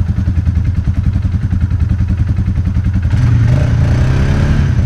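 ATV engine running with a steady throbbing beat, then revved up harder and louder about three seconds in.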